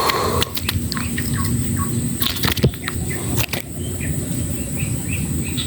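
Small birds chirping in short repeated calls, over a steady high thin whine and low background rumble, with a few sharp clicks or knocks.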